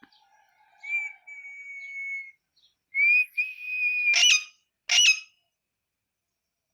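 Pet parrot whistling: two long, level whistles, the second louder, followed by two short, sharp calls about a second apart.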